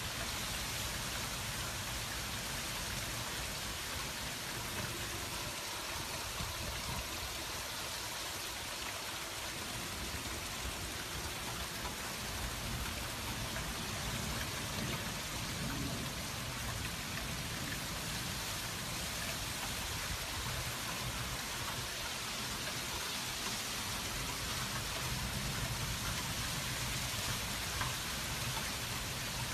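Heavy hurricane rain falling steadily: a constant, even hiss.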